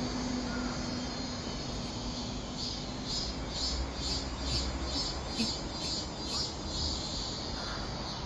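Cicadas calling in a steady high buzz, with a pulsing call repeating about three times a second from about two and a half seconds in. A low steady rumble of city traffic runs underneath.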